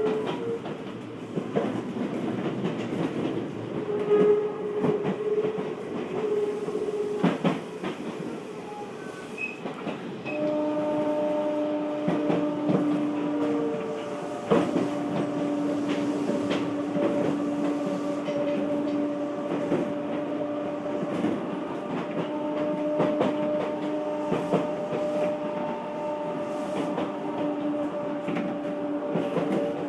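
Odakyu 1000-series electric train heard from inside the car while running between stations: a steady motor and gear hum in a couple of tones, louder from about ten seconds in, over wheel-on-rail rumble with scattered clicks of the wheels over rail joints.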